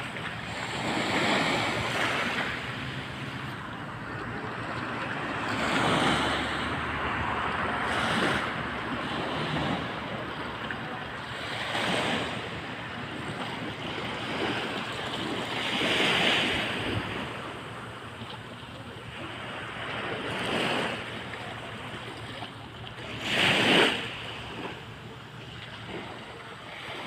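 Rough sea: waves breaking one after another, each a rushing swell of surf every few seconds, the loudest near the end.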